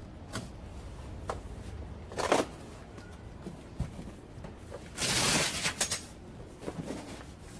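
Handling noises: knocks and rustles as a child car seat is lifted off an upholstered bench seat, then a louder rush of nearly a second, about five seconds in, as the bench seat is lifted up to open the storage box beneath it.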